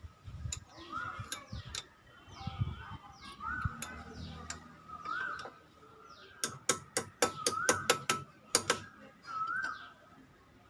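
Handling of pump parts during reassembly: a few low knocks, then a rapid run of about a dozen sharp metallic clicks a little past the middle. Through it, a bird repeats a short rising whistled note about every second and a half, along with fainter high chirps.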